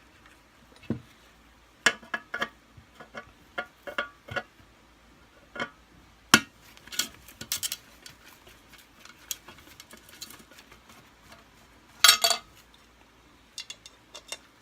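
Scattered clicks and metal clinks of a Kirby Sentria II vacuum's small parts being taken off and set down: a cover, metal washers and a hook. There is a short clatter about twelve seconds in.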